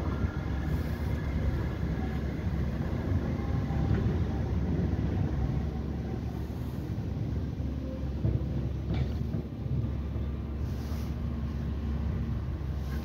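Electric tram running away along its track, its faint motor whine and wheel noise fading into a steady low rumble. A short click about nine seconds in.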